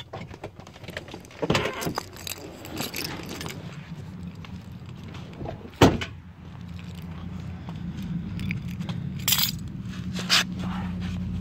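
Handling noise of getting out of a car: rustling and clicks, a car door shutting with a sharp bang about six seconds in, then footsteps and scuffs on pavement over a steady low hum.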